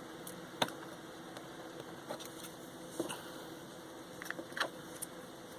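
Faint handling sounds of small repair work on a cable: a few separate sharp clicks and ticks, one about half a second in, another around the middle and one near the end, over a steady low electrical hum.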